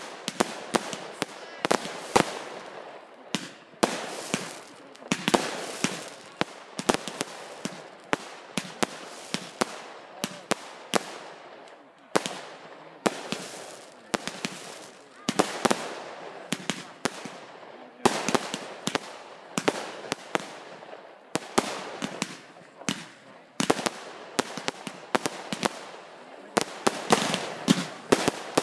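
Consumer aerial fireworks going off in a rapid, irregular run of sharp bangs, each burst trailing off in a short echo.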